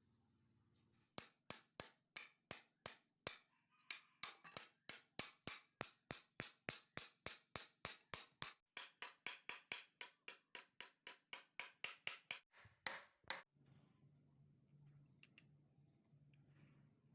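A hammer striking repeatedly, about three blows a second, as nails are driven into wood, with one short pause; the blows stop about three-quarters of the way through and a faint low hum remains.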